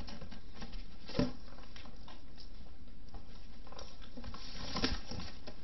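A large cardboard box being handled and shifted: low rustling with a soft knock about a second in and another near the end.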